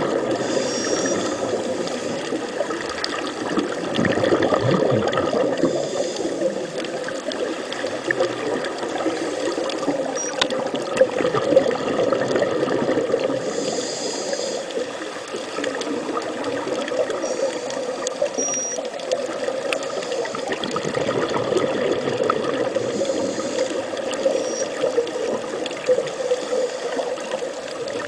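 Steady, continuous water noise with no speech, fluctuating in level throughout. A few brief faint high tones sound now and then.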